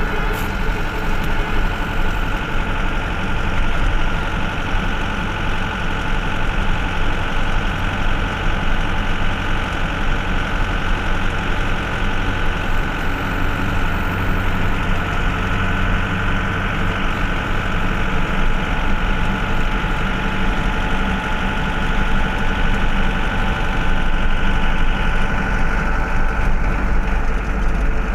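Engine and road noise of a vehicle driving along a highway, heard from inside the cab: a steady low drone.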